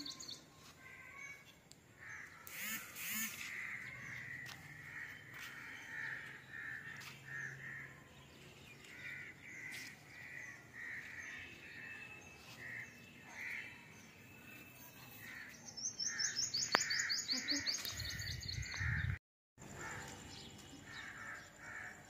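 Crows cawing over and over, with a fast, high chirping trill from another bird about 16 seconds in.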